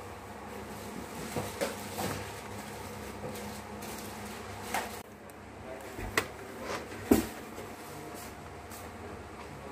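Plastic snap clips of an Asus TUF Gaming FX570UD laptop's keyboard top case clicking loose as the case is pried up off the base, about half a dozen sharp snaps, the loudest about seven seconds in.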